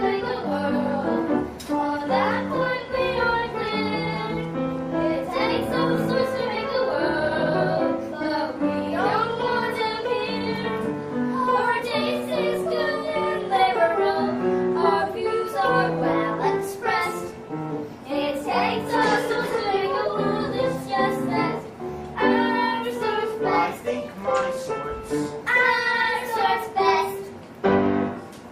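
Voices singing a musical-theatre song over piano accompaniment.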